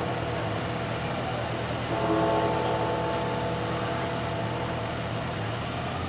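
Large bell in the Peace Tower on Parliament Hill striking once about two seconds in, its ring hanging on and slowly fading, likely one of the hour strokes at five o'clock. A low steady hum lies underneath.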